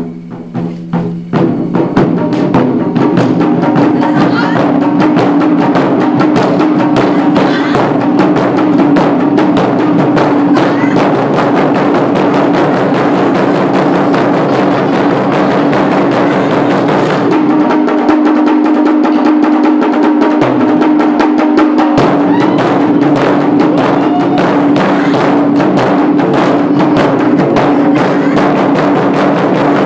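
Ensemble of barrel-shaped taiko drums beaten with wooden sticks, playing a fast, dense run of loud strikes that builds up to full level about two seconds in and carries on steadily.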